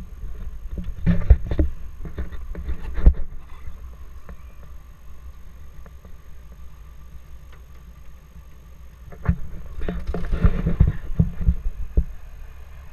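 Footsteps, thumps and knocks of a person stepping onto a Piper low-wing plane's wing walk and climbing in through the cabin door, carried through the wing to the microphone. The knocks come in one cluster in the first three seconds and another from about nine to twelve seconds in, over a low rumble.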